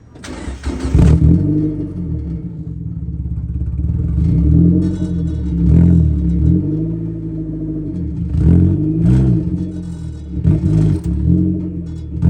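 Car engine running and revved up and down several times, after a loud noisy burst at the start.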